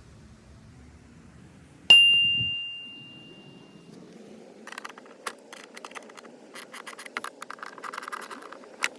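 A metal tool strikes something metal with one bright ringing ding that fades over about two seconds. Then come several seconds of rapid, irregular metallic clicking and rattling from hand-tool work, ending with one sharper click.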